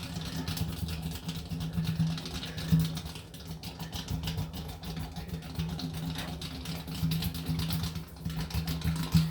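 A handheld power tool for the tire patch job running with a steady hum and a fast rattle, shut off abruptly at the end.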